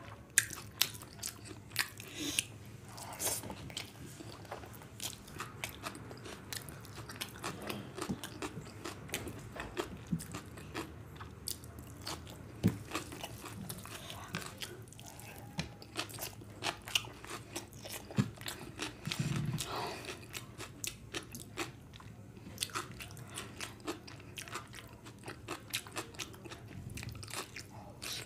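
Close-miked chewing and mouth sounds of a person eating fried rice and curry by hand: a dense, irregular run of small clicks and smacks.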